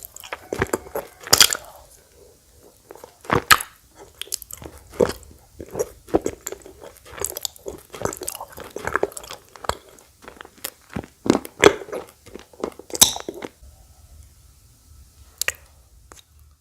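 Close-up crunching bites and chewing of edible clay. The crunches come irregularly and densely for most of the stretch, then die down to a single crunch near the end.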